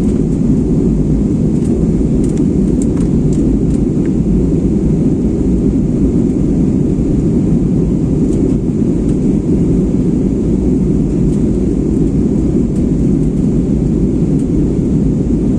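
Steady low rumble inside an Airbus A320 passenger cabin during descent: engine and airflow noise heard from a seat. A few faint ticks sound over it.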